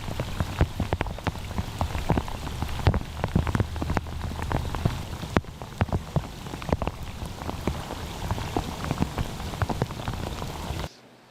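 Steady rain, with a hiss and many separate drops splattering close by; it cuts off abruptly near the end.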